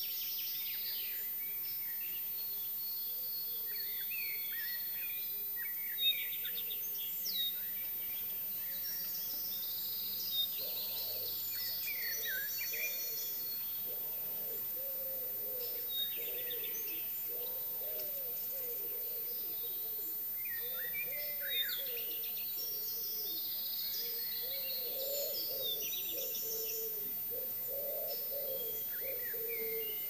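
Dawn chorus of several songbirds singing and calling over one another in high, twittering phrases, with a few sharper single calls. From about halfway on, a pigeon coos repeatedly in a low voice beneath them.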